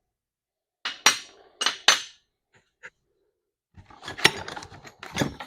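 Loose steel lathe tooling clanking as pieces are handled and set down: about three sharp clanks in the first two seconds, a couple of light ticks, then a longer rattle of metal parts near the end.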